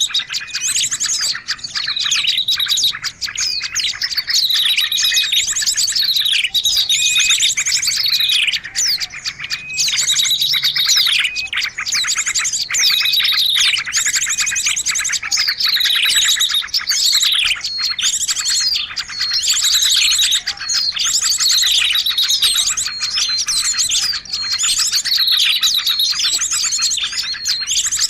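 Songbird song: a fast, unbroken chatter of high chirps, with high notes sweeping downward every second or two.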